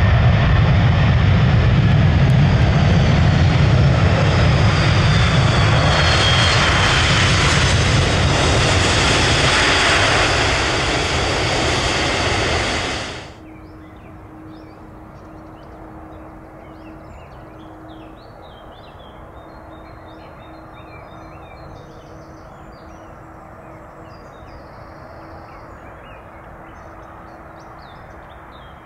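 Landing jet airliner's engines, loud and steady, with a faint falling whine. About thirteen seconds in the noise cuts off abruptly, leaving a quieter outdoor background with a faint steady tone and short, faint chirps.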